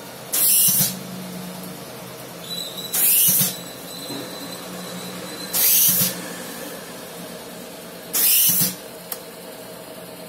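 Air-driven nozzle of a chocolate spray machine hissing in four short bursts, about half a second each and roughly every two and a half seconds, each burst spraying chocolate coating into a paper cup. A steady machine hum runs underneath.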